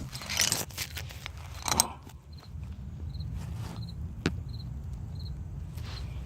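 2004 Mercury Mountaineer AWD driveline clicking while reversing and turning, a fault the owner puts down to the differential: scattered clicks over a steady engine hum, with a sharp click about four seconds in. A short high chirp repeats about every 0.7 s.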